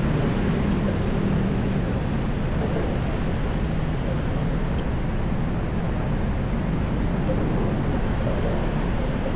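Steady street traffic noise, an even low-heavy din with no single standout event.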